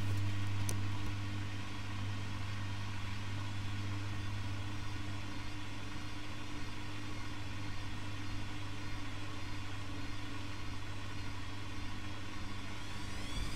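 Bauknecht WAK 6950 washing machine with a steady, even hum, typical of the drain pump running. Near the end a whine from the drum motor starts to rise in pitch as the drum begins to speed up.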